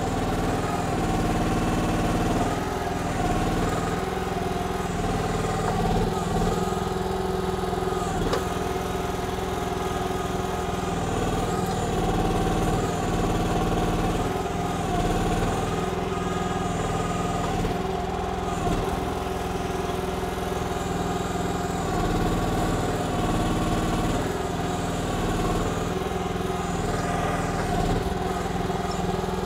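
Briggs & Stratton gas engine of a KYMRON XH14 mini excavator running steadily while digging, its note shifting slightly now and then as the hydraulics take load. There is a single sharp knock about eight seconds in.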